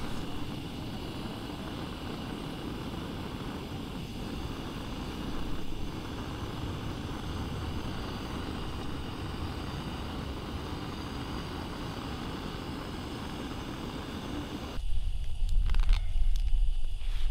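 Handheld butane gas torch, screwed onto a cassette gas canister, running steadily as its jet flame lights firewood. Near the end it gives way to a deep low rumble with a few sharp clicks.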